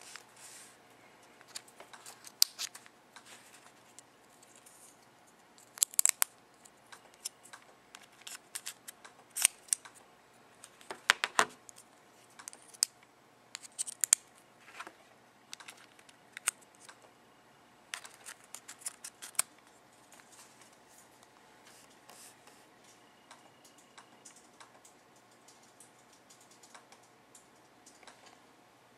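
Irregular small clicks and scrapes of a SIM card being handled and fitted into an original iPhone (2G)'s SIM tray. The clicks come in clusters and die away about two-thirds of the way through.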